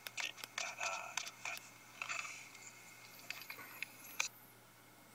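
Light, irregular clicks and taps with a faint murmured voice under them in the first couple of seconds.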